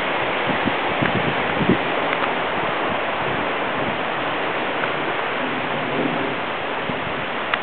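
Steady rush of flowing creek water, with a few soft thumps in the first two seconds.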